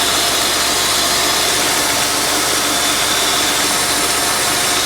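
1992 Holden VP Commodore engine idling steadily through its repaired, near-stock exhaust, a sound the owner himself says doesn't sound the best.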